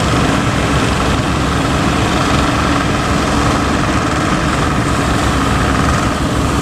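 Fishing boat engine running steadily, under a steady rushing noise.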